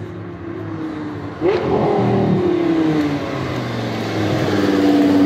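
Lamborghini Gallardo LP570 Performante's V10 engine through a Larini aftermarket exhaust, accelerating hard: fairly quiet at first, then about a second and a half in the throttle opens and it turns suddenly loud, the revs jumping up then sliding down, and it grows louder again near the end as the car comes close.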